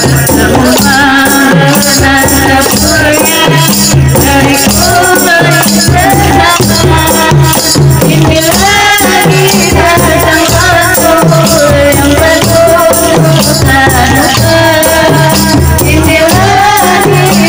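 Qasidah music: a woman's voice sings a melody through a microphone over rebana frame drums and jingling tambourines keeping a steady beat.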